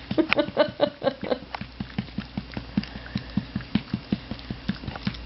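Rhythmic patting on a baby's back to bring up a burp, about five pats a second. In the first second and a half the baby makes short little voice sounds in time with the pats.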